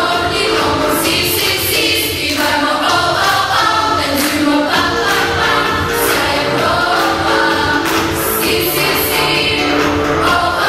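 Children's vocal group singing a fast dance-pop song together over a steady dance beat.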